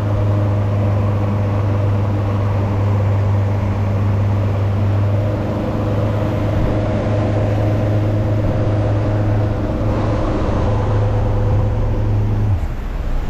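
Boat's outboard motor running steadily under way, a low even drone over the rush of water and wind against the hull. About twelve and a half seconds in, the low engine tone drops away and the sound gets slightly quieter.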